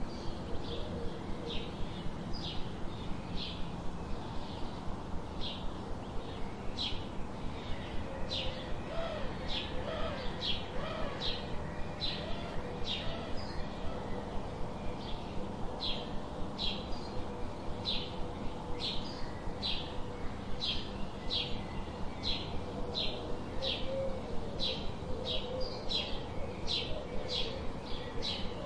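Birds calling: a short, high chirp repeated over and over, about once or twice a second, with a dove cooing a few times around a third of the way in and again later, over a steady background hiss.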